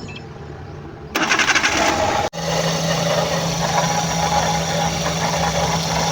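Car engine cranked and starting about a second in, then running steadily with a rough, rattling noise: the erratic grinding noise being traced from the engine bay.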